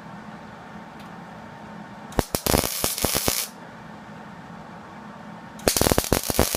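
Hobart 135 MIG welder laying two short tack welds on sheet-metal body panel. Each is a loud crackling burst of about a second, the second coming about three seconds after the first.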